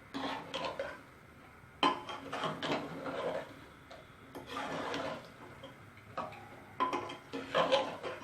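A spoon stirring and scraping frying tomato-and-spice masala around the inside of a pressure cooker, in irregular bursts of strokes with short pauses between.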